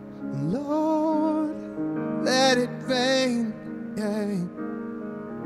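A man singing about four long, wavering phrases with vibrato over sustained grand piano chords that he plays himself.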